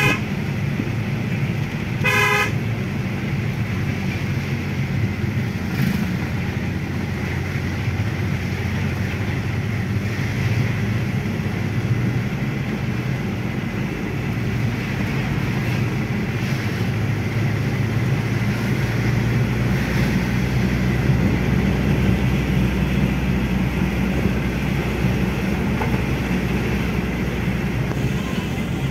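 Mahindra Bolero's diesel engine and road noise heard inside the cabin while driving down a hill road, a steady low rumble. A horn toots briefly about two seconds in.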